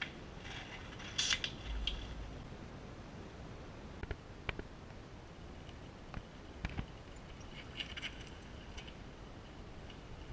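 A mountain bike coasting over rock slabs: metallic ratcheting and rattling clicks from the bike, with a few sharp knocks as it hits the rock, over a steady hiss of rolling noise.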